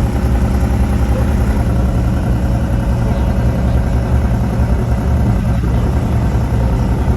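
Mercedes-AMG GT R's twin-turbo 4.0-litre V8 exhaust running with a loud, low, steady note, without revving.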